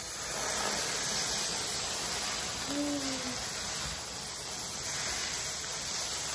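Food sizzling steadily in a hot pan, starting suddenly as it begins to fry.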